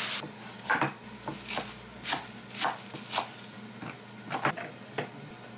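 A knife chopping on a cutting board in single strokes about every half second, with a brief hiss at the very start.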